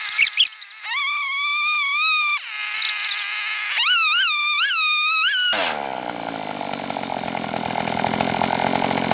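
Earthquake E43 one-man post-hole auger's 43cc two-stroke engine running at high speed as the bit drills into clay soil, its pitch wavering up and down under load. A little over halfway through the note drops abruptly to a lower, steadier running sound.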